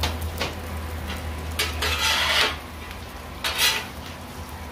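Metal spatulas scraping across a Blackstone griddle's steel cooktop as chopped bacon is turned: a couple of light clinks at the start, then a longer scrape about two seconds in and a shorter one near the end.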